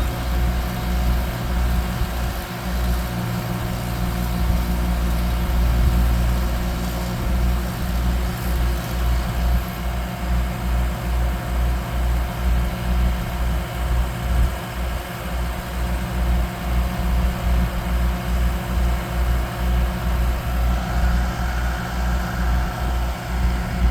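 Large diesel engine of a truck or heavy machine running steadily, with a low throb pulsing a few times a second.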